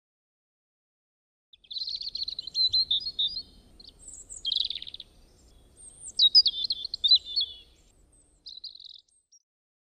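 A songbird singing: bright chirps and quick warbled phrases in several bursts, starting about a second and a half in, over a faint low rumble.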